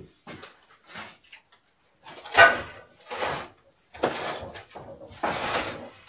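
Wooden shipping crate holding a heavy stove-fireplace being shifted across the floor by hand, scraping in about six short pushes.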